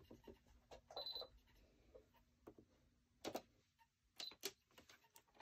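Near silence with a few faint clicks and taps as fabric is positioned at a sewing machine, and a short high tone about a second in.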